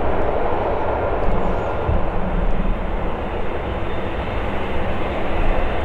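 Jet airliner engines running, heard as a steady, even rush of noise.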